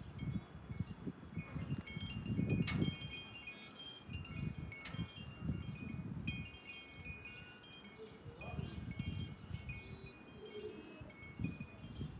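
Wind chimes tinkling: short high notes ringing out in scattered clusters, over irregular low bumps and rumble.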